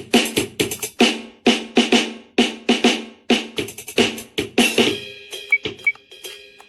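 A drum beat of quick, sharp drum hits, about four a second. Near the end the hits thin out and a few held ringing tones are left.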